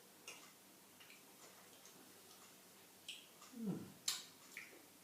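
Faint scattered clicks and a sharp tap just after four seconds, with a short falling hum of a voice about three and a half seconds in, while soup is being tasted.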